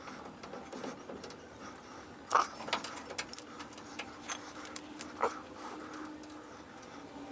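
Light metallic clicks and taps of hand tools and suspension parts being handled and fitted under a truck's front end, scattered irregularly, the sharpest about two and five seconds in. A faint steady tone comes in about two seconds before the end.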